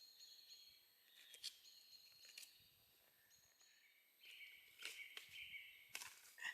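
Near silence in woodland, with faint high bird chirps and a few soft clicks.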